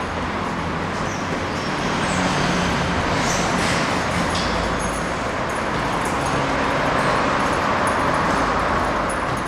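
Steady running noise of a moving vehicle: a continuous low rumble under a hiss, with no sudden events.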